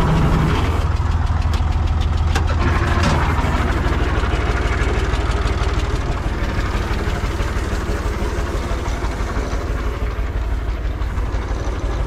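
Ursus C-360-3P tractor's three-cylinder Perkins diesel dropping from working revs to a steady idle, with a couple of clicks a few seconds in.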